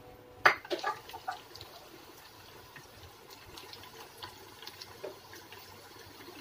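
Chicken pieces frying in a small saucepan of hot vegetable oil with faint, scattered crackling, beside sweet and sour sauce simmering as it is stirred. A sharp knock about half a second in, then a few smaller knocks within the next second.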